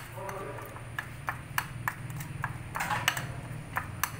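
Spoon clinking against a ceramic bowl while stirring a thick chicken marinade: a run of light, irregular taps. A steady low hum lies underneath.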